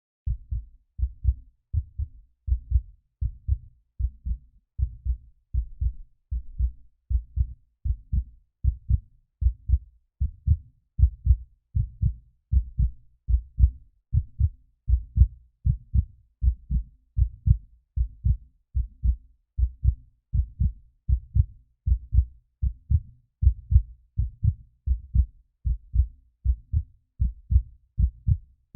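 Heartbeat, a steady lub-dub of paired low thumps repeating a little over once a second.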